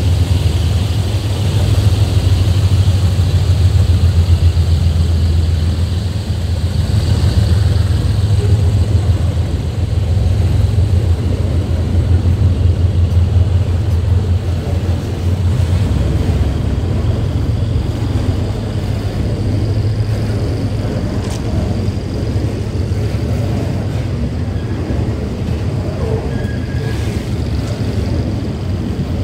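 Freight train of rail tank wagons rolling slowly past, a steady low rumble of steel wheels on the rails that eases a little about halfway through.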